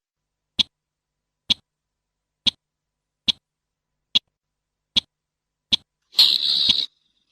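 Slaty-breasted rail calling: a series of short, sharp single notes, about one a second, then a longer, noisier call near the end.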